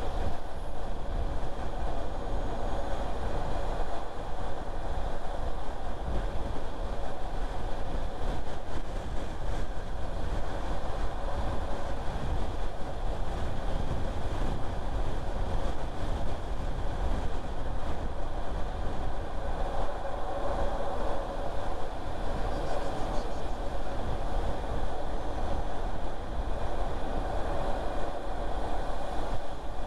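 A car driving along a road: steady tyre and engine noise with a constant low rumble that does not rise, fall or break.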